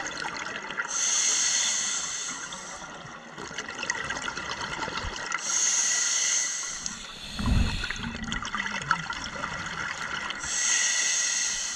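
Diver breathing through a scuba regulator, heard underwater: three long hissing inhalations about every four and a half seconds, with a low rumbling burst of exhaled bubbles between the second and third.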